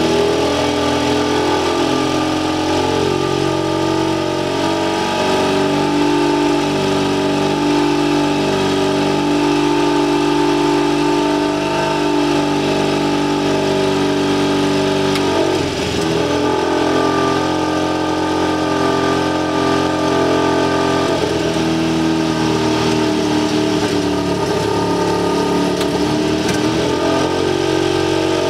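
HKS 700T turbocharged, fuel-injected twin-cylinder aircraft engine held at run-up speed for a magneto check, running steadily. Its note shifts up and down in steps, with a brief dip and recovery about halfway through.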